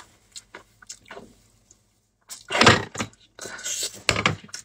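Paper tissue rustling faintly as the table is wiped, then a large glass bowl being handled on the table, knocking against it about two and a half seconds in and again near the end.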